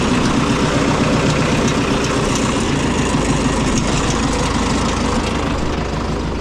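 Oliver 1950-T tractor's turbocharged Detroit Diesel 4-53 engine running steadily. Its engine note changes about three seconds in.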